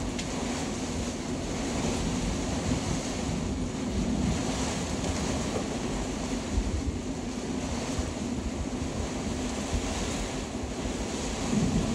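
Storm winds of about 70 knots buffeting a sailboat, heard from inside the cabin: a steady rushing noise with a low rumble underneath.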